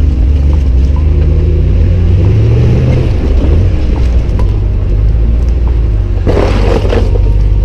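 Ram Power Wagon's 6.4-litre HEMI V8 and tyres giving a loud, steady low rumble, heard from a camera on the front fender, with a short splash of mud and water about six seconds in.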